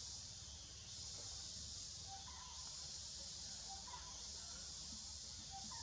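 Steady high insect drone that swells and eases in stretches, over a low rumble, with a few faint short chirps about two, four and five and a half seconds in.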